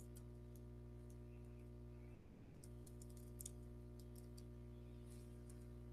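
Faint computer keyboard typing and clicks, in scattered short runs, over a steady low hum.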